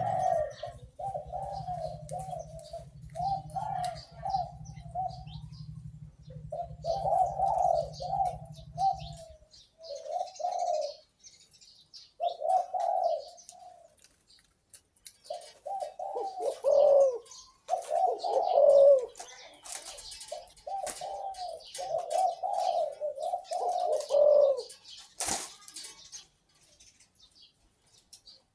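A captive-bred dove cooing in repeated phrases of several coos with short pauses between. A steady low hum lies under the first third, and there is a single sharp click near the end.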